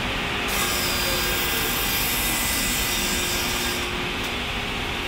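Log band saw running, its blade ripping lengthwise through a log. The high hiss of the cut starts about half a second in and drops away near the end, over steady mill machinery noise.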